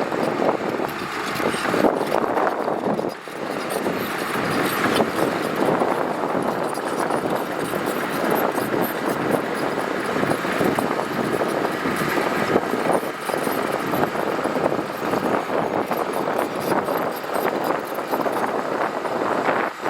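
Heavy earthmoving machinery working gravel: a steady, loud mechanical noise with a brief dip about three seconds in.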